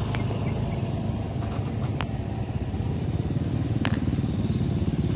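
An engine running steadily, its sound heavy in the low end, with three sharp clicks spread across it.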